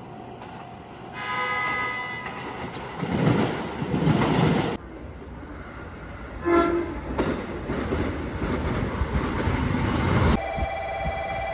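Horns of JR Kyushu limited express electric trains in short edited clips. A horn sounds about a second in, then loud train running noise, a short horn blast from a 783 series train as it approaches about halfway through, and its running noise as it pulls into the station.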